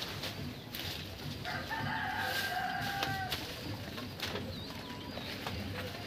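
A rooster crowing once, starting about a second and a half in and held steady for almost two seconds. Small birds chirp briefly later on.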